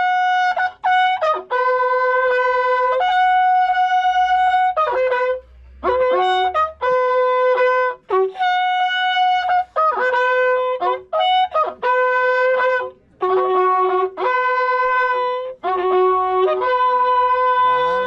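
A corneta, an Andean horn, played solo: a tune of long held notes in short phrases, with brief breaks between them.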